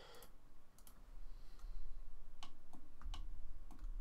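About eight short, irregular clicks of a computer mouse and keyboard as a Blender scene is being worked on, over a low steady hum.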